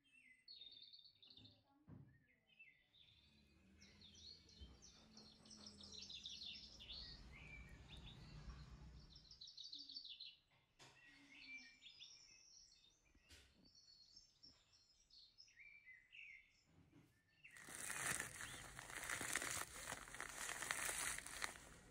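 Faint bird-like chirping. About eighteen seconds in, a louder rustling starts as a plastic bag of roasted vermicelli is crinkled and tipped over a bowl.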